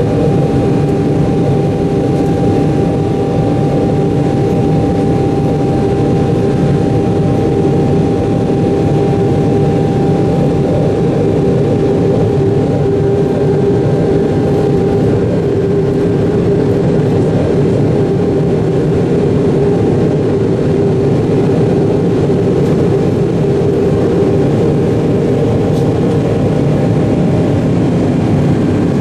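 Steady roar of a Boeing 777-300ER's GE90-115B turbofan engines heard inside the cabin during the climb after takeoff: a deep rumble with a steady whine on top. A thin higher tone in the whine fades out about halfway through.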